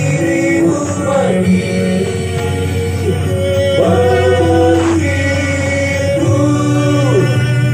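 Music with a male singing voice, played loud through a large stacked outdoor sound system during a sound check, with deep bass notes under held, gliding vocal lines.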